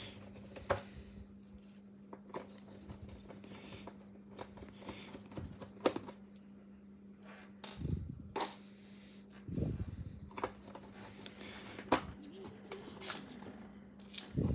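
Loose small laptop screws clicking and clinking in a plastic parts bin as they are picked through by hand, in scattered single clicks with a couple of duller knocks.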